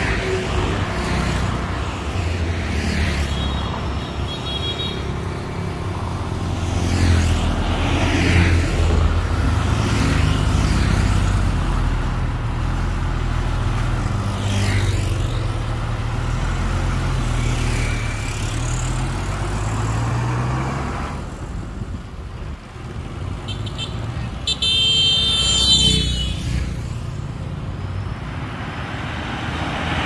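Heavy construction vehicle's diesel engine running under load, its pitch rising and falling as it works, then dropping away about 21 seconds in. A short high-pitched tone sounds about 25 seconds in.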